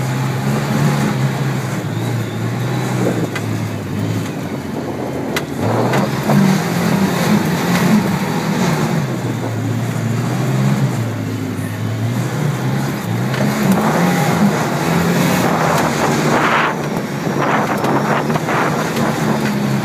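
Off-road vehicle engine running while driving across sand dunes, its pitch rising and falling with the throttle, under steady rushing noise with a few knocks and rattles.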